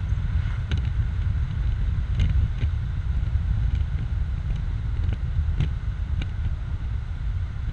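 Wind buffeting the microphone in an open-top 2004 BMW Z4 2.5i on the move: a steady low rumble with the car's engine and tyre noise underneath, and several faint sharp ticks.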